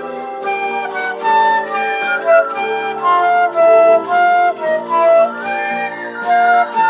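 Instrumental background music: a slow melody of held notes over a sustained accompaniment.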